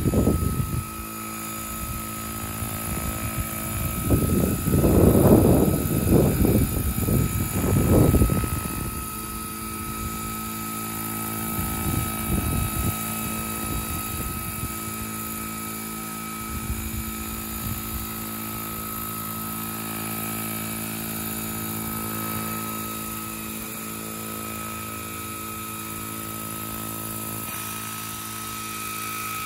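Radio-controlled Vario Chinook scale model helicopter running its tandem rotors, a steady high whine with several even tones. A gusty rushing noise swells and falls about four to eight seconds in.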